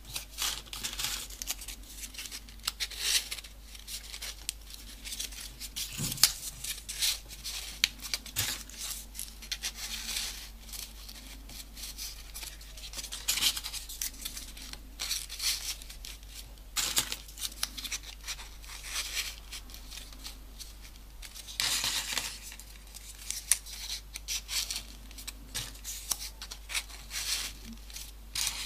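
Folded paper triangle modules rustling and crinkling in short, irregular scrapes as they are handled and pushed into the pockets of a modular 3D origami model.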